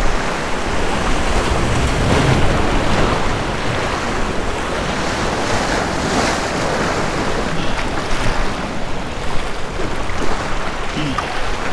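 Surf breaking and washing over jetty rocks: a steady rush of water that swells every few seconds, with wind buffeting the microphone.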